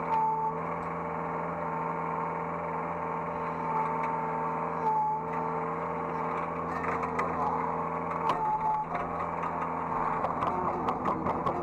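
Hydraulic excavator running, heard from the operator's seat: a steady engine hum with a few brief whines as the hydraulics work, and a fast rhythmic clatter starting near the end.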